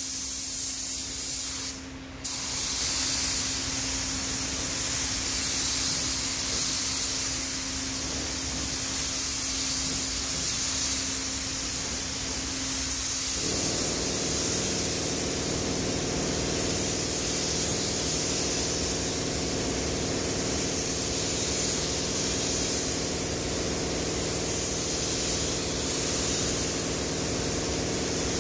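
Gravity-feed compressed-air spray gun hissing steadily as it sprays clear coat, swelling and easing with each pass, with a brief break about two seconds in when the trigger is let off. About halfway through, a low steady machine hum joins in underneath.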